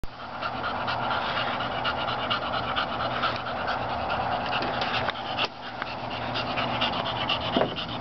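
Cocker spaniel panting rapidly after exertion, worn out from running and hunting in a field, with a brief break about five and a half seconds in.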